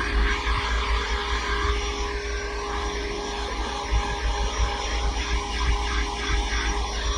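Vacuum cleaner running steadily: a constant motor whine over a rushing air noise.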